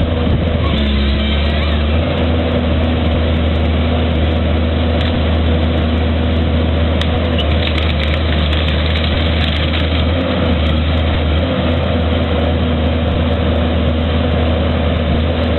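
A large engine running steadily with a strong low hum, its pitch and level holding even throughout.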